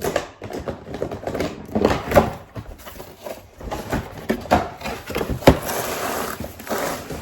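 Packaging being pulled off a new coffee machine: cardboard and plastic being handled, with a run of knocks and clatters and a stretch of rustling near the end.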